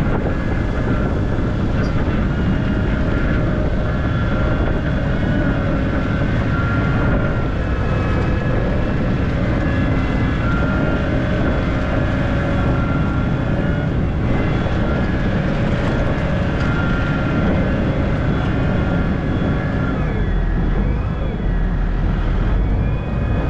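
Farm tractor engine running steadily under load as the tractor works to drive out of deep mud, its pitch shifting a little, with a change in the engine note near the end.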